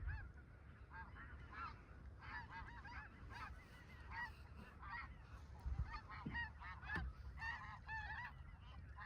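A flock of snow geese calling: many short, high honks overlapping continuously. A few faint low thumps sound about six and seven seconds in.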